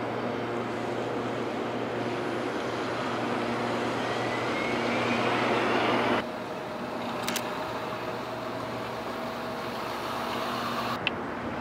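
City street traffic noise: a steady drone of passing vehicles, with a rising whine building over the first six seconds. It cuts off abruptly to a quieter street ambience, broken by two sharp clicks.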